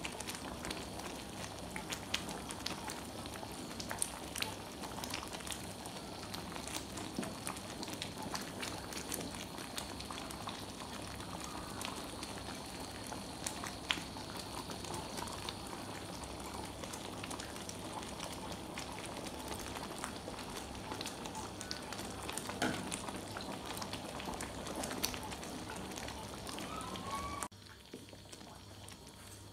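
Chocolate syrup of cocoa, sugar and water bubbling at a boil in a frying pan while a wooden spoon stirs it, with a steady simmering hiss and many small pops. Near the end the sound drops suddenly to a quieter bubbling.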